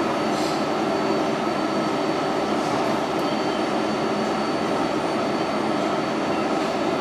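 Steady rumble of an R142A subway car's wheels and running gear on the rails, heard from inside the car while it runs through the tunnel and past a station without stopping, with a thin steady high whine over it.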